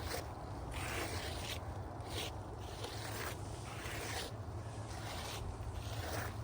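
Repeated, irregular scraping and rubbing strokes of asphalt roof shingles being handled and lifted, over a steady low rumble.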